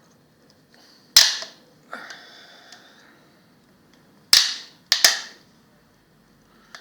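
A 3D-printed plastic case being pried with long-nose pliers: three sharp snaps, one about a second in and two close together later, with a brief scrape after the first, as the case is forced and resists opening.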